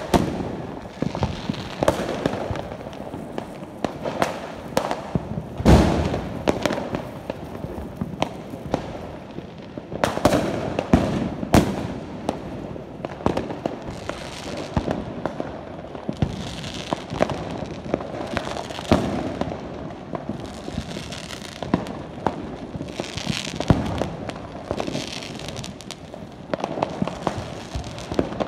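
Diwali firecrackers and fireworks going off across the neighbourhood: a constant run of sharp bangs, some near and some distant, over continuous crackling. The loudest bang comes about six seconds in.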